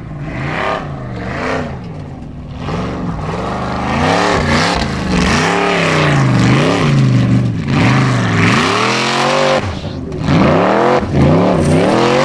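Formula Offroad buggy's engine revving hard under load on a steep hill climb, loud, its pitch rising and falling again and again as the throttle is worked. The revs climb to a high peak and cut off sharply about ten seconds in, then rise again.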